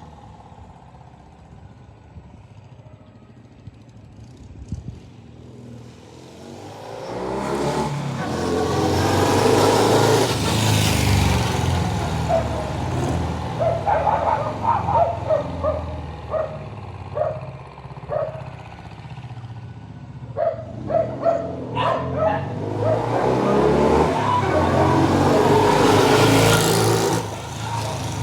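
Norton motorcycle engine running at a low idle, then revved hard about seven seconds in, followed by a string of short throttle blips and another long rev near the end. Freshly repaired, it sounds way better.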